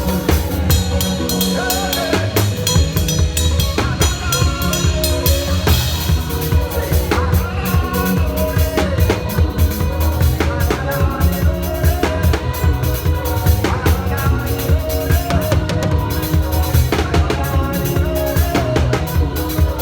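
Live church praise music: a drum kit playing a busy beat with snare and bass drum hits over a sustained band accompaniment.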